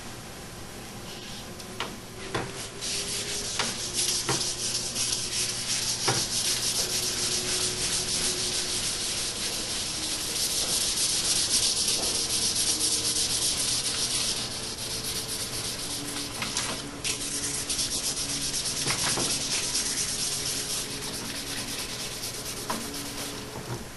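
Hand wet-sanding of a clear urethane coat on a wooden glove box door with 500-grit wet/dry sandpaper: steady, scratchy rubbing strokes that start about two seconds in and run until near the end, with a few light knocks along the way.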